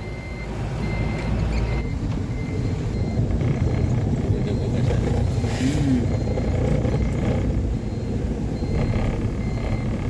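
Moving minibus heard from inside: a steady engine and road rumble, with a short electronic warning beep repeating a little faster than once a second.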